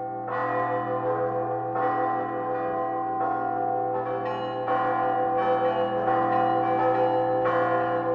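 Church bells being rung: several bells struck one after another, a new stroke roughly every second, their tones overlapping and ringing on between strokes.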